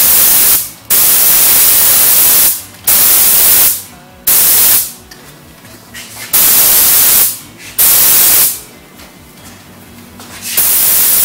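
Compressed-air gravity-feed spray gun with a 1.3 tip spraying epoxy primer in short passes: a loud hiss of air and paint, triggered on and off about seven times, each burst lasting one to two seconds.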